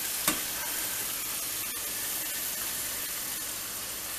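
Kitchen faucet running water steadily into a metal pot in a stainless steel sink, with one brief knock near the start.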